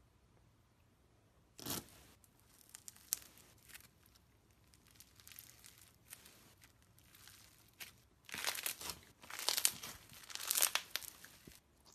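Crunchy foam-bead slime being stretched and squeezed by hand, crackling in short scattered clusters that grow denser and louder in the last few seconds.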